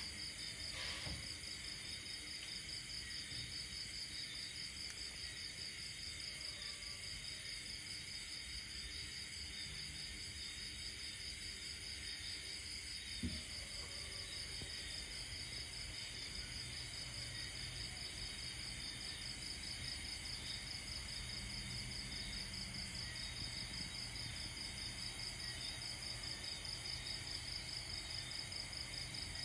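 Insects chirring steadily in a fast, high-pitched pulsing trill, with a single sharp click about 13 seconds in.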